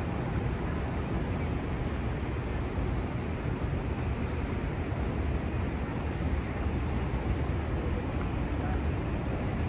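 Steady city street noise, mostly a low rumble of passing traffic, with no distinct single event standing out.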